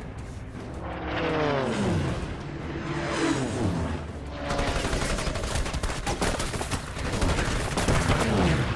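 A Soviet propeller fighter plane diving past, its engine pitch dropping three times as it sweeps by. Rapid machine-gun strafing fire with bullet strikes starts about halfway through and runs on.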